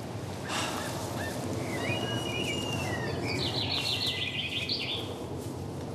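Garden ambience: small birds chirping, then a quick trilling call a little after the middle, over a steady low background noise.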